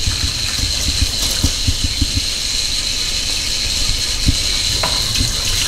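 Kitchen faucet running into a stainless steel sink with a steady hiss of water, splashing irregularly as hands are washed under the stream.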